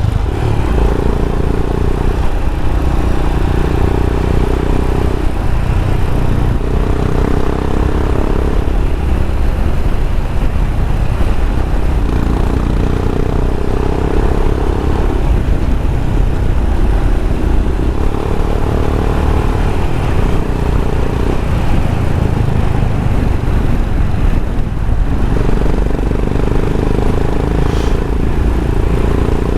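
Single-cylinder motorcycle engine running under way on a dirt mountain track. The engine note swells and eases every few seconds as the throttle opens and closes, over a steady low rumble of wind and road noise.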